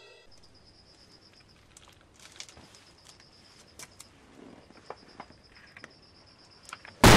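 Faint high insect trill, pulsing in runs with short breaks, over scattered light clicks and scratches as stag beetles crawl over loose soil. Right at the end a sudden loud explosion sound effect bursts in.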